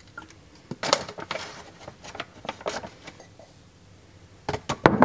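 Kitchen handling sounds: a plastic creamer bottle, a protein-powder scoop and a glass jar being handled, giving scattered clicks and knocks. The loudest knocks come in a quick cluster near the end.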